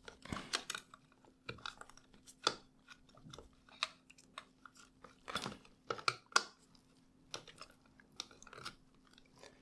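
Toy phone's plastic housing and parts being handled and fitted together by hand: irregular clicks, taps and scrapes of plastic, with the loudest knocks about two and a half seconds in and around six seconds in.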